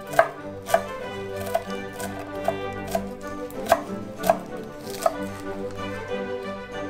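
Chef's knife chopping fresh greens on an end-grain wooden cutting board: a series of sharp knocks of the blade on the wood, unevenly spaced, about one every half second to a second.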